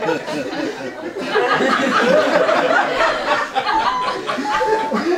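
Audience laughing while actors shout over one another on stage.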